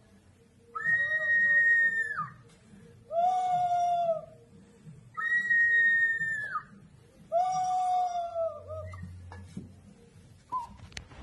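Two Peruvian clay water whistles, half-filled with water, played in turn: four bird-like whistling calls of about a second and a half each, alternating a higher and a lower pitch. A few light clicks near the end.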